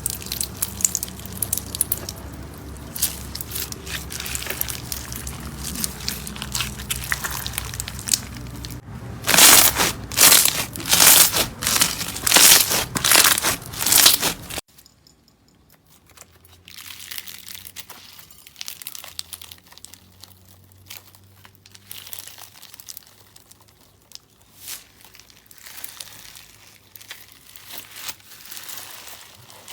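Slime being squeezed and pressed by hand, making a dense crinkling, crackling sound. About six loud presses come in a row midway through. Then the sound cuts to a quieter stretch of sparse crackles and squishes.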